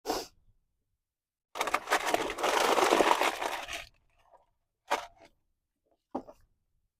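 Handling noises from brake work: a short scrape at the start, a longer rough scraping rustle of about two seconds, then two brief knocks or scrapes near the end, as the caliper guide pins are cleaned and greased.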